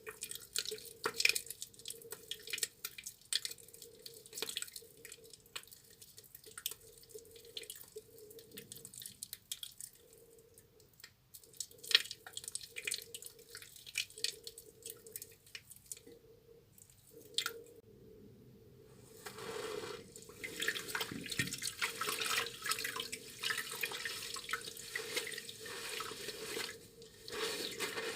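Hands lathering a soaked bar of tar soap with water: scattered wet drips and clicks, then about two-thirds of the way through a denser, louder run of wet squishing as the lather is worked up.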